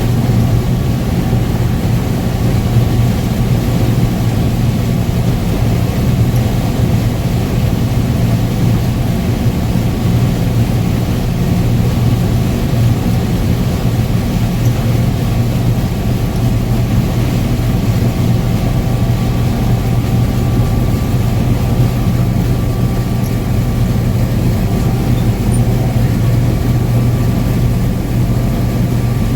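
International Harvester 1660 combine running steadily while harvesting corn: a constant heavy engine drone with the threshing machinery turning.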